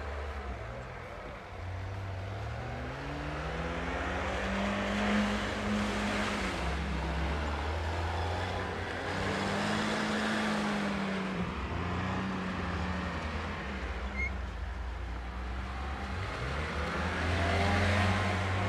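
UAZ 4x4 off-roader's engine revving up and down several times as it spins its wheels through snow and mud slush, with the hiss of the tyres churning the slush; near the end a Lada Niva's engine revs as it slides through the same patch.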